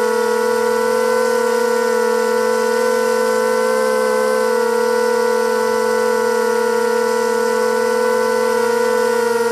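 ZMR250 250-size quadcopter's brushless motors and propellers whining steadily in flight, a cluster of steady tones whose pitch wavers slightly.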